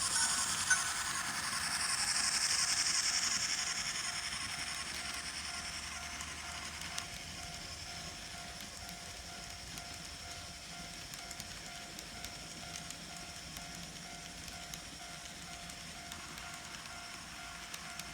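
N scale model train running on track, a light motor-and-gear whir with faint small clicks of wheels on rail. It grows fainter after the first few seconds.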